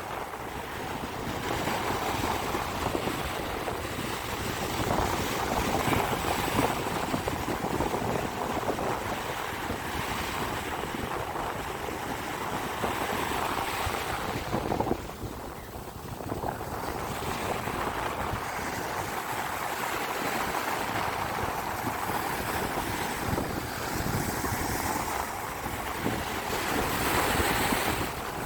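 Sea waves breaking and washing on a beach, a continuous surging wash that swells and eases, with wind buffeting the microphone. The sound drops off suddenly about halfway through, then builds again.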